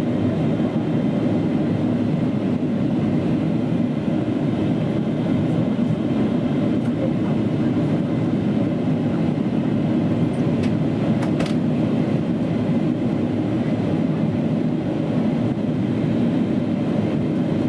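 Steady cabin roar inside a Boeing 777-300ER in descent: an even, deep rush of airflow and engine noise heard from a window seat, with a couple of faint ticks about ten and eleven seconds in.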